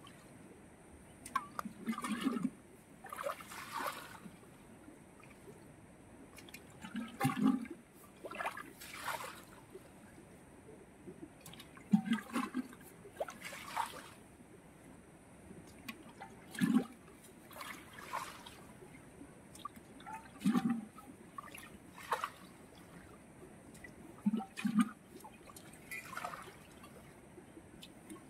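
Muddy water being bailed out of a shallow waterhole with a metal cooking pot: a scoop and a splash of thrown water, repeated about every one to two seconds.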